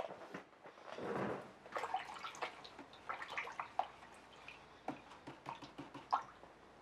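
A paintbrush being swished and rinsed in a metal tray of water to clean off acrylic paint: faint, irregular small splashes and clicks.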